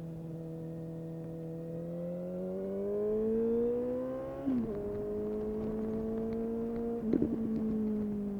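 2019 Suzuki GSX-S750's inline-four engine through a Yoshimura SQ11 exhaust with no dB killer and the catalytic converter removed, under way: the note holds steady, rises as it accelerates, drops abruptly with an upshift about four and a half seconds in, then holds again. A short burst of crackles comes about seven seconds in, after which the pitch slowly falls.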